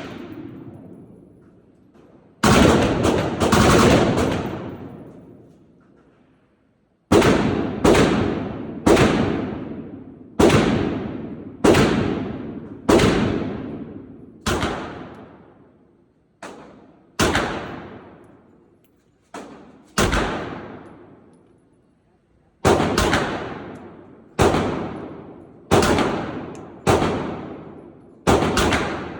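Gunshots fired one after another at a shooting range, about twenty in all at roughly one a second, each followed by a ringing echo that fades away. There is a pause of a few seconds after the first few shots.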